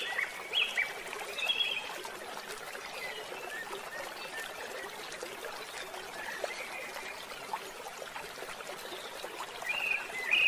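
Birds chirping over a steady babbling stream: quick runs of short high chirps that drop in pitch in the first two seconds and again near the end, with only the flowing water in between.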